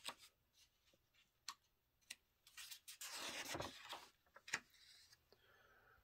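Paper instruction booklet pages being handled and turned: a few light ticks, then a rustling swish of a page turning from about two and a half to four seconds in, and one more tick near the end.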